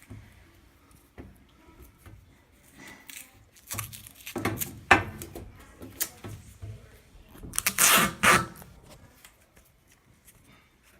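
Irregular handling noises from work on a top-load washing machine's cabinet: scattered clicks and knocks, with two louder scraping, rustling bursts, one near the middle and a longer one a little later.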